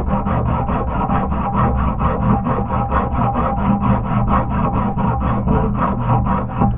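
Hacksaw cutting through a metal strip: quick back-and-forth rasping strokes, about five a second, in an even rhythm.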